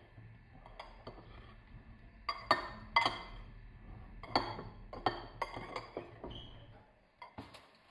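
A metal spoon clinking irregularly against a ceramic bowl while stirring button mushrooms in marinade. The louder knocks ring briefly.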